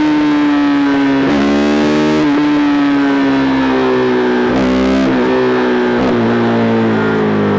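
KTM RC390's single-cylinder engine running at high revs through a replica SC Project aftermarket exhaust: a loud, steady drone whose pitch sags slowly, with brief dips in pitch several times as the throttle or gear changes.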